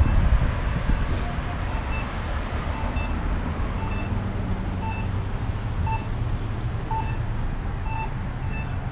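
Street traffic at an intersection, with a car passing close at the start, loudest in the first second. A short electronic beep repeats about once a second over the street noise and comes faster near the end.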